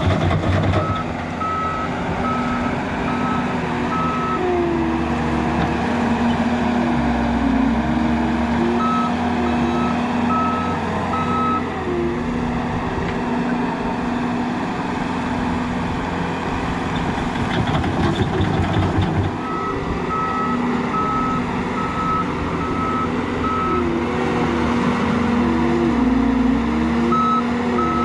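John Deere compact track loader's diesel engine running under load, its pitch rising and falling as it works the bucket and drives. Its reverse alarm beeps steadily in four spells as it backs up.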